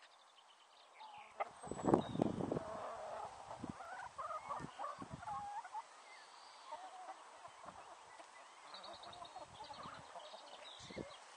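A flock of hens clucking and making soft, wavering contented calls while foraging, with a few low thumps about two seconds in.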